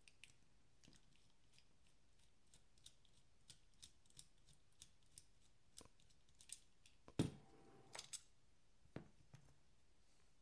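Quiet, scattered small clicks and ticks of metal folding-knife parts being handled and fitted during reassembly at the pivot, with a sharper click about seven seconds in and a few more just after.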